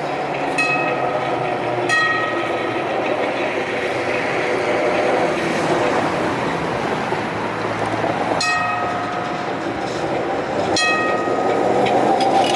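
Hansa GT4c tram running on its rails with a steady rumble. Four sharp metallic clicks ring briefly, spread unevenly through the sound.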